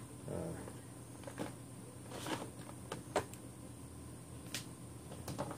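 Handling noise: a handful of light clicks and knocks, a second or so apart, as a phone is picked up and handled, over a faint steady background hum.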